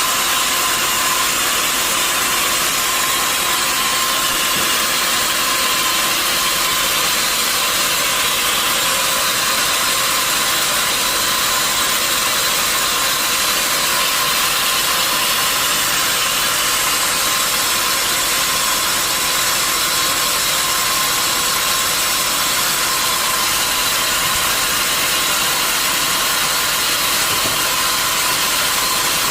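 Steady, unbroken machinery noise, a constant hiss-like din with no starts, stops or changes in pitch.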